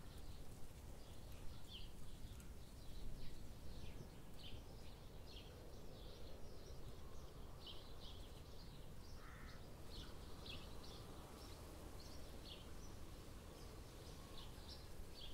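Quiet outdoor ambience: small birds chirping over and over, with a steady faint low rumble underneath.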